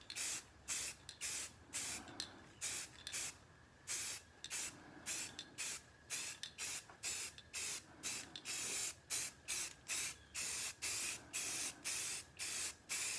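Rust-Oleum 2X aerosol spray paint can hissing in quick short bursts, about two a second, as light coats of flat grey go on. There is a pause of about a second a few seconds in.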